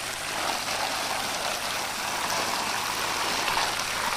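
A netful of mullet thrashing in shallow water, making a dense, steady splashing with many small slaps against the water.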